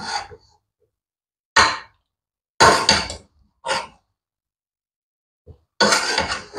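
Slotted metal spatula scraping and knocking against a metal cooking pot as it digs into cooked biryani rice, in about five short separate strokes with silence between; the longest is about half a second, near the middle.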